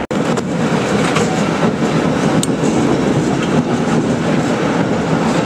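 A rail car running along its track: a steady, loud rumble with faint clicks, beginning abruptly.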